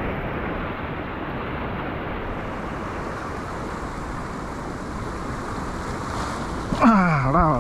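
Sea surf washing and breaking over the rocks of a stone breakwater, a steady rush. A man's voice cuts in near the end.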